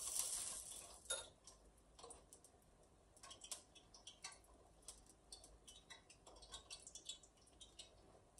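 Gas range's spark igniter clicking repeatedly as a burner knob is turned to light the burner, about three or four clicks a second for several seconds. A short rustling noise comes first.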